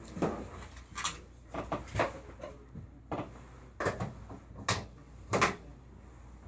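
About ten irregular knocks and clunks over several seconds, some with a brief ring after them, like hard objects being bumped or set down.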